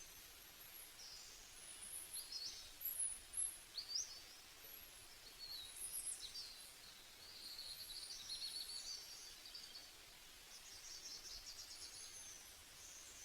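Faint birdsong: many short high chirps, quick up-and-down calls and trills over a light hiss, with a longer trill about eight seconds in and a rapid run of ticking notes near the end.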